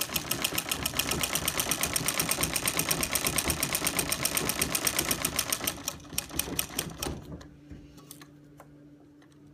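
Early-1900s Standard Rotary treadle sewing machine stitching through denim at a steady fast pace, about ten needle strokes a second. It slows about six seconds in and stops about a second later, with a few last single clicks.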